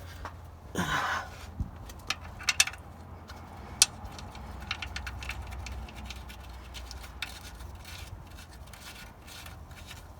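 Small metal clicks, taps and scrapes of hand tools and parts being handled under a pickup during an oil change, a few sharp clicks between about 2 and 4 seconds in, with a short rustle about a second in.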